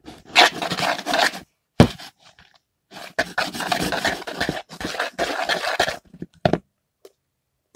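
Slime being mixed and worked in a bowl with borax activator: two long stretches of scraping and rubbing, with a sharp knock about two seconds in and another near the end.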